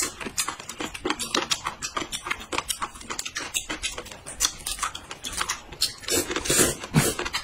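Close-up eating sounds: quick, irregular crackling and clicking as cooked shrimp shells are peeled apart by hand, with a louder slurp of noodles about six seconds in.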